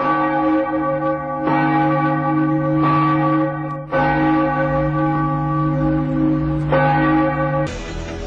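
A large church bell tolling slowly: several strokes a second and a half to three seconds apart, each ringing on into the next. Music takes over near the end.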